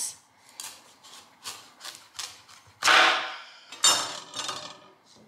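Chef's knife cutting the ends off a raw spaghetti squash on a wooden cutting board: a run of short knocks as the blade goes through the hard rind and meets the board, the loudest and longest about three seconds in.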